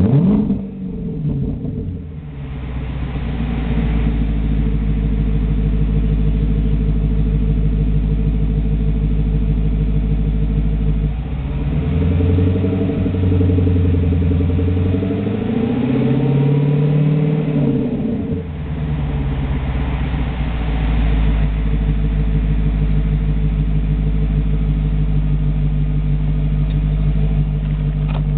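2010 Hyundai Genesis 4.6 V8 running through an exhaust with the muffler cut off and no tailpipes yet. Near the start a rev drops back to idle; about eleven seconds in it is revved and held, climbing slowly for about seven seconds before falling back to a steady idle.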